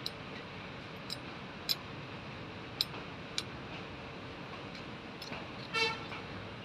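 Small spoon clicking against a miniature metal pan as greens are stirred: a handful of sharp taps, irregularly spaced, over a steady low hiss. Near the end, a brief high-pitched call.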